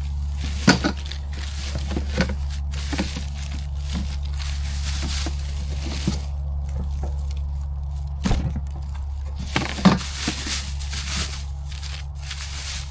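Cardboard box and packing material being handled and pulled open, with scattered knocks and crinkling over a steady low hum.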